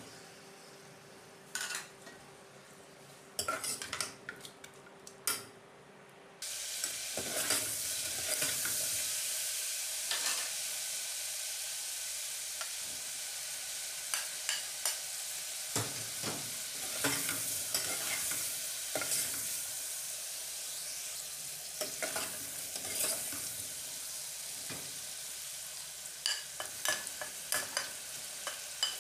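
Chicken frying in hot oil in an aluminium pressure cooker. A few light knocks come first; about six seconds in, a steady sizzle starts suddenly, with the repeated scrape and clack of a spoon stirring against the pot.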